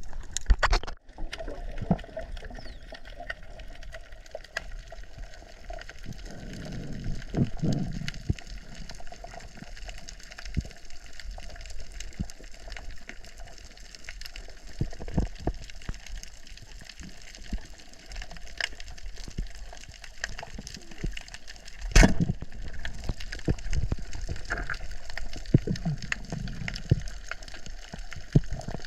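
Water gurgling and moving around a GoPro camera in its underwater housing, with scattered short clicks throughout. There is a low rumble twice, and a single sharp knock about two-thirds of the way through.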